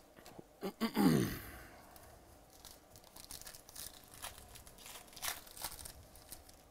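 A foil trading-card pack being torn open and crinkled, a run of crisp crackles through the second half. About a second in, a short sigh falling in pitch, the loudest sound here.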